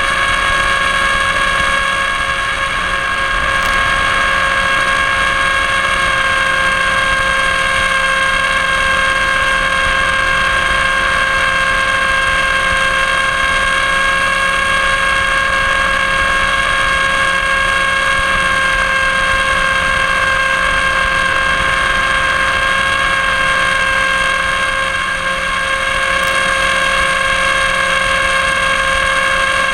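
Electric motor and propeller of a Blitz RC Super Skysurfer model glider running flat out at full throttle, a steady high-pitched whine with rushing noise, heard from the camera on board. Even at full power the plane is being pushed backwards by a strong headwind.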